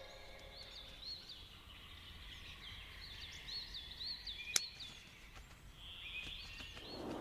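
Faint ambience of small birds chirping in short groups of quick chirps, with one sharp click about four and a half seconds in.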